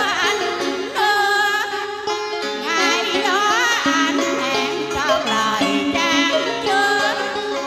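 A woman singing a Vietnamese tân cổ (modern song mixed with cải lương) piece into a microphone over instrumental backing music. The melody slides and wavers with ornaments throughout.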